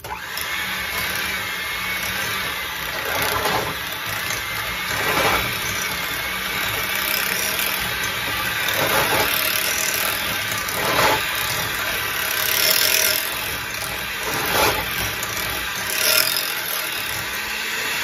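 Electric hand mixer running, its two beaters whipping cream cheese, peanut butter and brown sugar in a glass bowl. The motor hum is steady, swelling louder every couple of seconds as the beaters move through the bowl.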